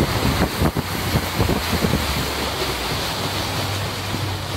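Speedboat under way: wind buffeting the microphone over the rush of water past the hull, with the engine's steady low hum underneath. The wind gusts are heaviest in the first two seconds, then settle into a steadier rush.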